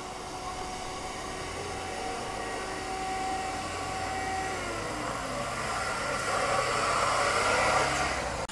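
Engine of a four-wheel-drive off-road vehicle running as it crawls over rough ground toward the microphone, growing steadily louder and loudest near the end. Its note drops once about halfway through.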